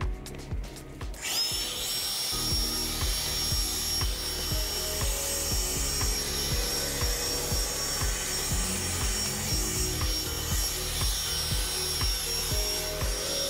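Handheld leaf blower spinning up about a second in, then blowing steadily: a rush of air with a steady high whine, clearing debris off the pavement.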